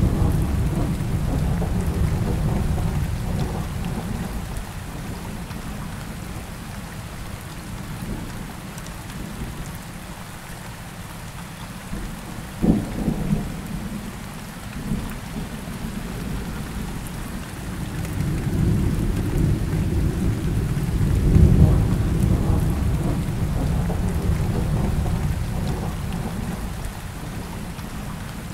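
Steady rain with rolling thunder: deep rumbles swell at the start and again in the last third, with one sharp crack a little before the middle.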